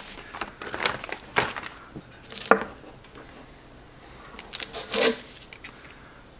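Plastic packaging rustling and clicking as a mochi is unpacked, then a kitchen knife cutting the mochi on a wooden cutting board, with short sharp knocks of the blade on the board, the loudest about two and a half seconds in and more around five seconds in.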